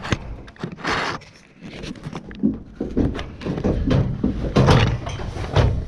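Fabric rustling and dull, irregular thumps as a pony rubs and scratches itself against a person's jacket close to the microphone.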